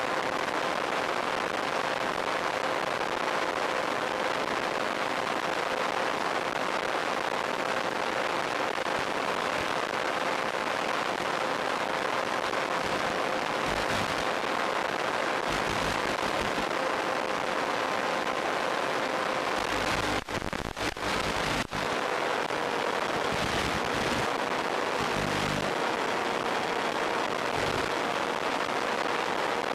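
Audio carried over a weak 10 mW analog FPV video link from a model plane in flight: a steady hiss with a steady whine through it. About twenty seconds in it is broken by a few brief crackling dropouts.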